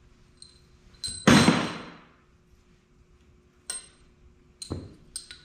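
Metal clanks and knocks as a steel valves-out Cummins cylinder head and its parts are handled on a steel workbench: one loud clank with a short metallic ring a little over a second in, then a sharp click, a heavier knock and a few light clicks near the end.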